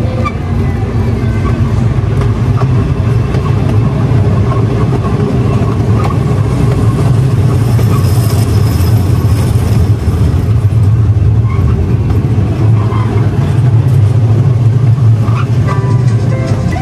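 Steady low rumble of the Casey Jr. Circus Train ride running along its track, heard from aboard one of its cars.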